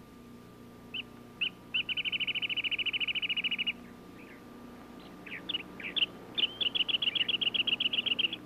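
A small songbird singing two rapid trills, each about two seconds of evenly repeated high notes at roughly ten a second, with a few single notes before each.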